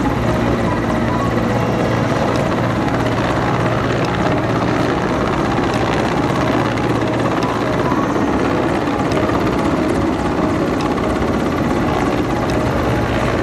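Military helicopter hovering overhead, its rotor and engines running steadily and loudly while a person hangs from its winch cable.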